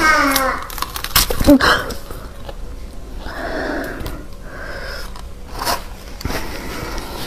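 Biting into a block of frozen dragon-fruit milk ice: two sharp cracks about a second in as the ice breaks and sprays, followed by crunching, chewing and breathy mouth sounds.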